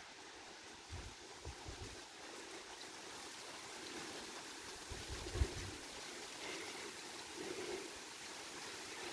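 Steady hiss of rain falling, growing a little louder, with short gusts of wind buffeting the microphone about a second in and again around five seconds.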